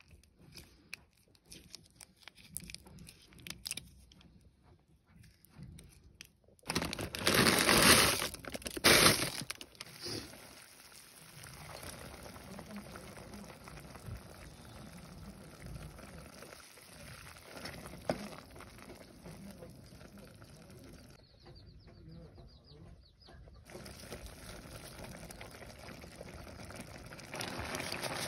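Instant noodle soup boiling in a steel pot on a gas stove, a steady low hiss. About seven seconds in, a loud noisy burst lasts about three seconds.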